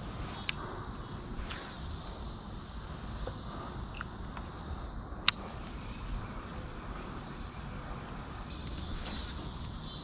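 Insects calling in a steady high-pitched drone, with a low background hiss. There is a sharp click about five seconds in and a lighter one near the start.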